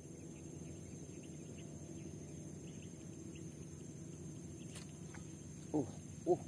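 Steady chirring of crickets and other insects over a low, even hum, with faint scattered ticks. Near the end come two short, low-pitched calls close together, louder than the rest.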